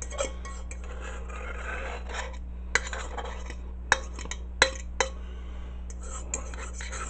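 A spoon scraping sour cream out of its container and knocking against the dish, with a few sharp taps about three to five seconds in.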